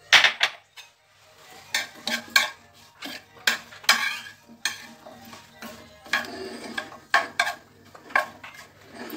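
A utensil clacking and scraping against a frying pan as green bell pepper strips are stirred and turned in oil, in a string of irregular sharp knocks.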